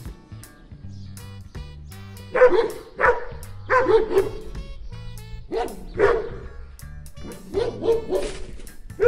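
A dog barking repeatedly in short runs of one or two barks, starting about two seconds in, over background music.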